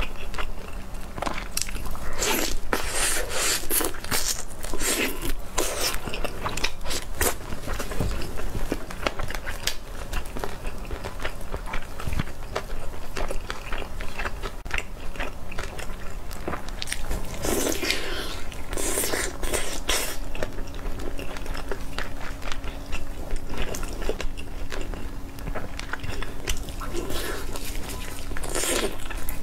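Close-miked eating of roast chicken crusted with chili flakes and sesame: irregular biting, crunching and wet chewing, with louder bites a few seconds in and again near the middle.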